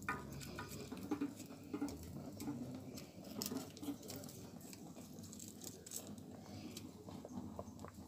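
Wood fire crackling under a cooking pot: faint, irregular small pops and clicks.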